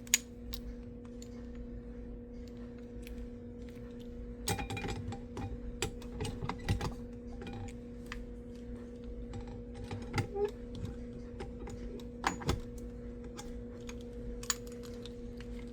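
Irregular clicks and knocks of a manual fire alarm pull station being handled and reset, over a steady low hum.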